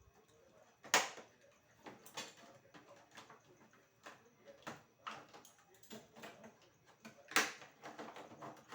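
Plastic food containers and lids knocking and clattering as they are set down and shifted on refrigerator shelves: a series of scattered knocks, two louder ones about a second in and near the end.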